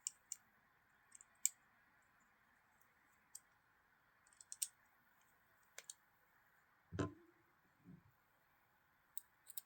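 Sparse light clicks and taps from handling a folding knife and its small parts, with a duller knock about seven seconds in.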